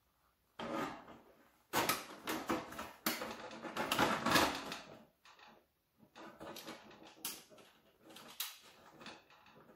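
Thin corrugated galvanized steel panels scraping, rattling and flexing as they are worked together by hand. The scraping and clattering are loudest in a run from about two to five seconds in, then go on more quietly and unevenly.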